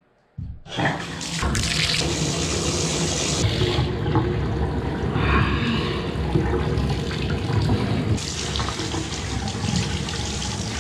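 Water running from a bathtub spout onto a person's head and hair and into the tub. It comes on about half a second in and then runs steadily.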